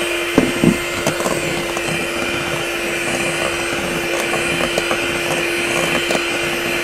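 Electrolux electric hand mixer running steadily, its beaters whipping egg whites to foam in a stainless steel bowl. A few light knocks come about half a second in.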